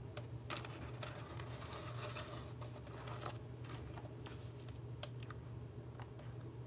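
Hands pressing and rubbing a glued cardstock rim onto a paper circle: faint scratching of skin on paper with a few light taps, over a steady low hum.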